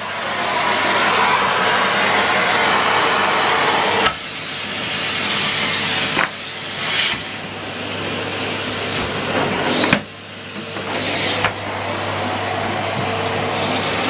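Numatic Henry cylinder vacuum cleaner running steadily, sucking oatmeal off a carpet, with a steady motor hum and a thin whine under the airflow hiss. The hiss drops suddenly several times as the nozzle moves over the floor, and there are a few sharp knocks.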